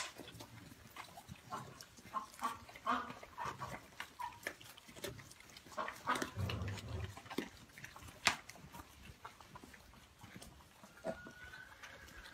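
Several animals, a small pig among them, crunching and chewing chopped vegetables from a metal tray: a run of short crisp crunches, with low pig grunts about six to seven seconds in and a sharp knock a little after eight seconds.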